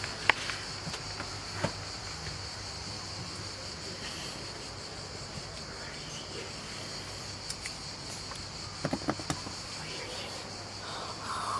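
A steady, high-pitched drone of insects, with a few sharp clicks near the start and a short cluster of clicks about nine seconds in.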